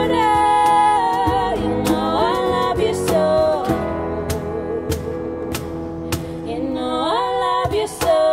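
Live acoustic band: a singer holding long notes over strummed acoustic guitar, with cajon hits about once a second keeping the beat.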